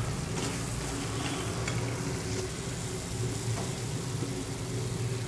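Thick, nearly dry masala and mutton liver sizzling in an aluminium pressure cooker, with a metal spoon stirring and scraping the pot a few times. A steady low hum runs underneath.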